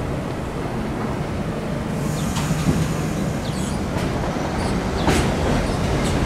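R62A subway train pulling out of the station and moving off: a steady low rumble of wheels and running gear, with sharp wheel clicks on the track starting about two seconds in and coming more often.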